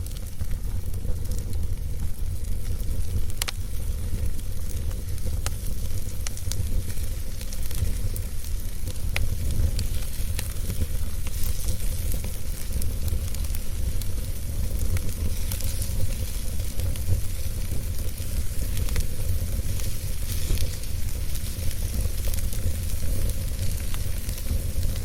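Wood fire crackling in a fireplace: scattered sharp pops over a soft hiss and a steady low rumble.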